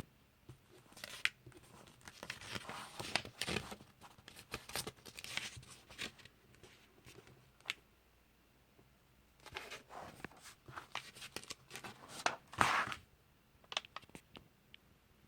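Glossy pages of a comic book being turned and handled, the paper rustling and crinkling in short irregular bursts. A lull of about two seconds falls in the middle.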